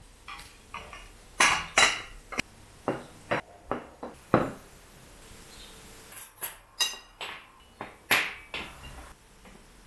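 Dishes and cutlery clinking and knocking as they are handled: about a dozen separate, irregularly spaced clinks and taps.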